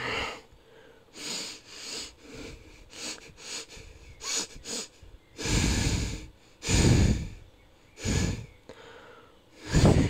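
Moose-based creature sound effect: a series of breathy snorts and huffs. Short quiet puffs come first, then, from about halfway, four longer, louder exhalations about a second apart.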